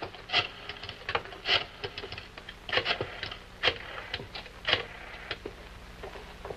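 Desk telephones being handled: a series of sharp, irregular clicks and knocks as receivers are lifted and worked, over a faint steady hum.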